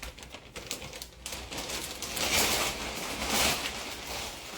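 Plastic vacuum storage bag rustling and crinkling as it is handled and stuffed with plushies, a dense run of small crackles that swells about halfway through.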